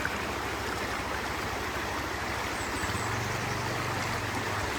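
Stream running, a steady rushing of water; a faint low hum joins for the last couple of seconds.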